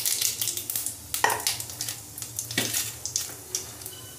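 Cumin seeds sizzling and crackling in hot oil in a kadhai, a tempering (tadka) frying. The crackle is heavy at first and thins out after about a second, with two sharper clicks.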